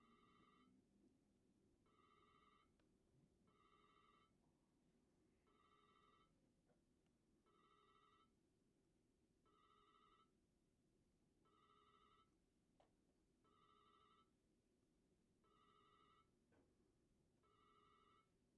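Near silence, with a faint electronic tone of several pitches sounding for under a second about every two seconds.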